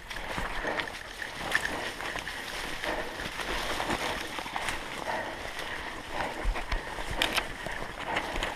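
Footsteps through dry leaf litter and brush, with branches rustling and scraping past, and a few sharper snaps, the loudest about seven seconds in.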